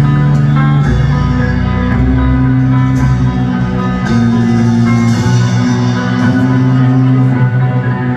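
Heavy rock band playing live in a stadium: distorted electric guitars and bass holding long chords that change every second or two, loud and recorded from the crowd.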